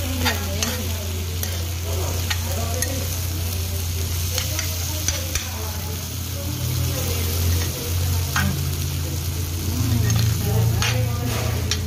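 Pork sisig and egg sizzling on a hot cast-iron sizzling plate while a spoon stirs it, the spoon clicking and scraping against the plate now and then, over a steady low hum.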